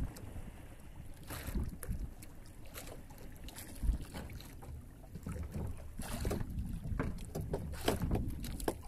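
Wind buffeting the microphone over a low rumble on a small outrigger boat at sea, with scattered knocks and rustles as a fisherman hauls in a handline hand over hand. A single low thump stands out about four seconds in.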